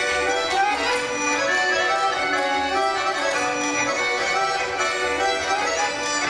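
Live folk instrumental band, with double bass among the instruments, playing Ukrainian folk dance music.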